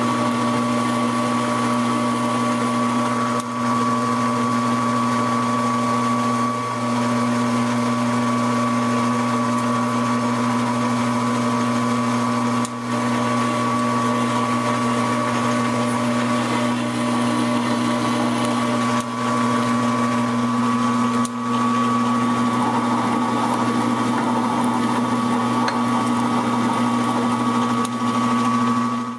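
Metal lathe running steadily under power, its motor and gear train humming and whining, while a single-point tool cuts threads on a spinning steel rifle barrel blank.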